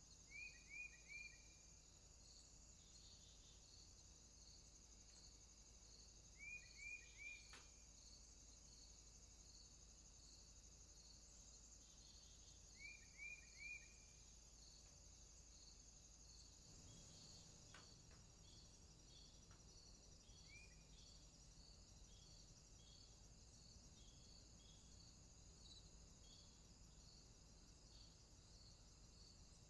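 Faint steady chirping of insects, a high trill with a regular pulse about twice a second. A bird calls over it with three quick falling notes, three times about six seconds apart, then a single note later on.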